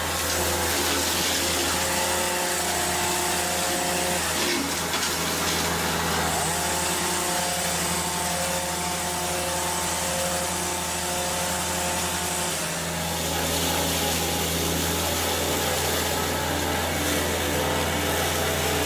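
A heavy tree-handling machine running steadily, with a constant low engine hum and a whine that comes in about two seconds in and drops away after about twelve seconds.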